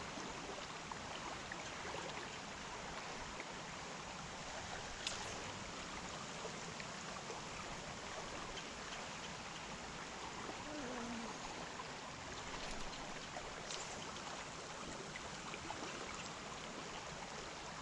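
Creek water flowing steadily around the angler, with two faint clicks about five seconds in and near fourteen seconds.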